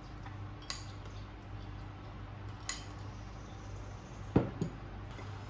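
Tableware clinking: two light, sharp clicks, then a louder double knock about four seconds in as a glass of iced coffee is set down on the wooden table.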